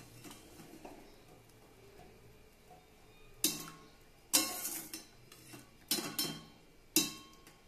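A slotted spoon clatters against stainless-steel pots four times, starting about three and a half seconds in, as boiled soya chunks are scooped out of hot water and dropped into cold water.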